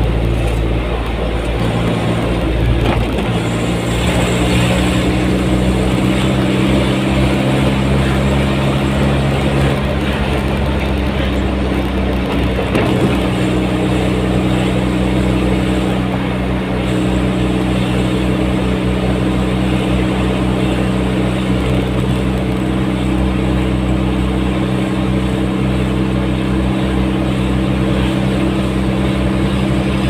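A vehicle's engine running steadily at cruising speed, with tyre and road noise, heard from inside the cab while driving.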